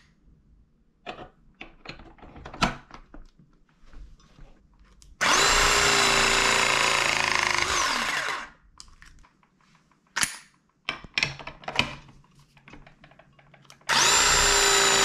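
Rothenberger Romax battery press tool with a 15 mm jaw crimping a copper press-fit coupler onto 15 mm copper pipe. Clicks and knocks of the jaw being fitted over the coupler, then the tool's motor runs for about three seconds with a steady whine that drops away as the press completes. After more clicks it starts a second press near the end.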